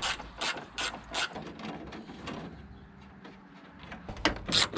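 Hand ratchet wrench clicking through a run of short strokes, going quiet for a couple of seconds and starting again near the end.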